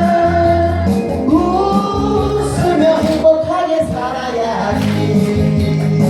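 Music: a song with sung vocals over instrumental backing.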